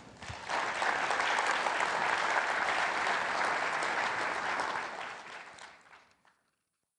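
Audience applauding, swelling up about half a second in, holding steady, then dying away over the last second or so.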